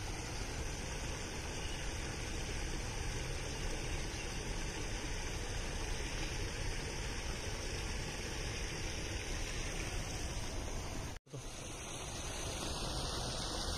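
Steady, even outdoor rushing noise with no distinct events, like running water or wind. It cuts to silence for a moment about eleven seconds in, where the recording is cut.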